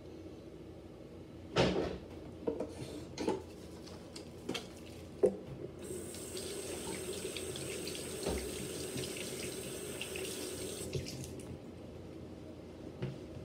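Bathroom sink tap running into the basin for about five seconds, starting about six seconds in and then shut off. Before it come a few sharp clicks and knocks.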